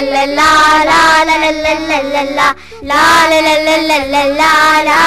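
A child's high voice singing a nursery poem unaccompanied, in sung phrases with a short breath break about two and a half seconds in.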